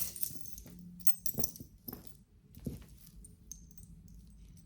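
A jewelry necklace being handled: a few light clicks and clinks of beads and metal chain knocking together, with brief small metallic rings.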